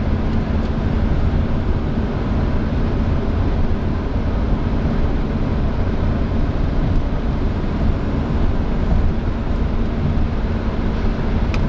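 Steady road and engine noise inside a moving vehicle's cabin: a constant low rumble with a faint hum.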